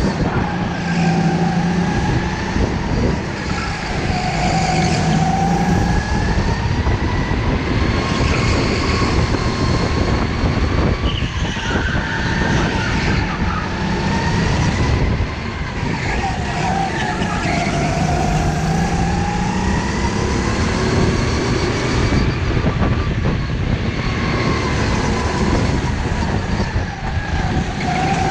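Go-kart motor heard from onboard at race pace, its pitch climbing and dropping again and again as the kart speeds up and slows for corners, over a constant rushing noise.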